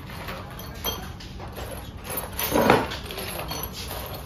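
Hand tools clicking and knocking against metal while engine mounting bolts are fitted, with a louder, longer scraping noise about two and a half seconds in.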